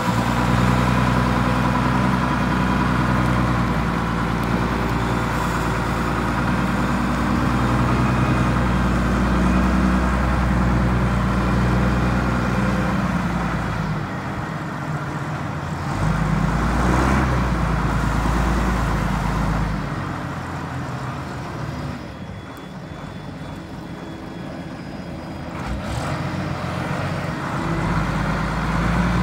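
LMV 12/D heavy forklift's diesel engine running, its note dropping off for a while past the middle and picking up again near the end.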